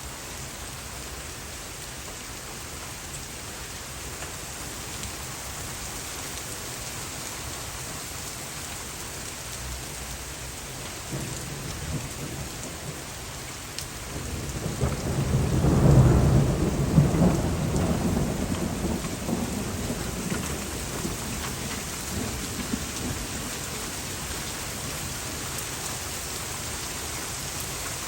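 Steady rain falling hard from a thunderstorm. About halfway through, a roll of thunder swells, rumbles loudest for a couple of seconds and slowly dies away.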